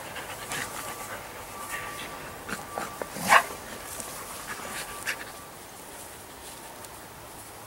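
Dogs close by, with a faint thin whine through the first half and one short, sharp, noisy snort a little over three seconds in.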